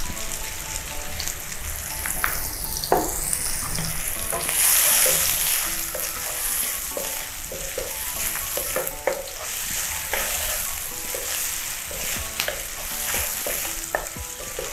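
Sliced mushrooms and garlic sizzling in a nonstick frying pan, with a wooden spatula stirring and scraping them in short strokes against the pan. The sizzle swells for a moment about five seconds in.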